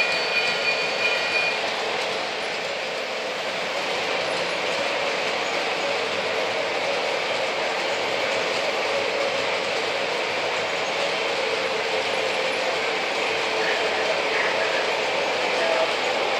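O gauge model freight train rolling along three-rail track: a steady rattle and rumble of wheels and cars on the rails. A few high squealing tones are heard for about the first second and a half.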